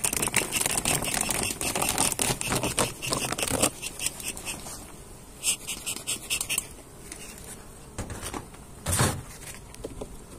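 A beehive being opened and handled: dense crinkling and scraping for the first few seconds, then scattered scrapes and a single thump about nine seconds in, with bees buzzing faintly.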